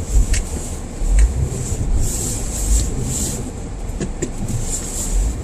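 Footsteps in snow while walking with a phone, with irregular low thumps of wind and handling on the microphone and a few short crunches or clicks.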